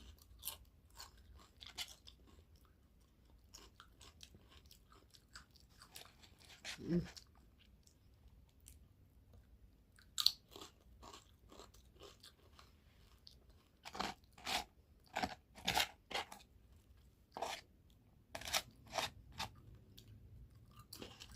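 A person chewing crunchy food: scattered short crunches, with runs of louder, quicker crunches in the second half.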